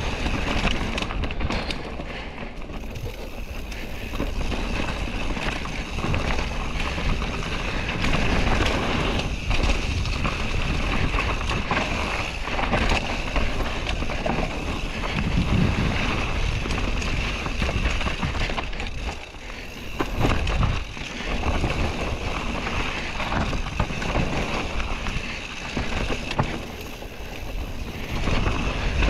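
Mountain bike descending a dirt trail at speed: wind rushing over the microphone over steady tyre and trail noise, with many small knocks from the bike over bumps.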